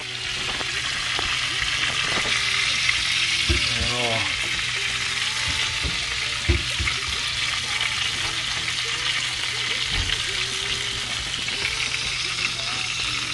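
Venison tenderloin wrapped in caul fat searing in a hot frying pan, the fat sizzling steadily. A few soft knocks sound over the sizzle.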